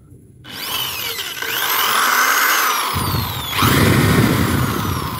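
Corded electric drill spinning a large hole saw in the air with no load. The motor whines up to speed about half a second in and is revved up again about three and a half seconds in. The free run is a check that the saw is tight and spins true without wobbling.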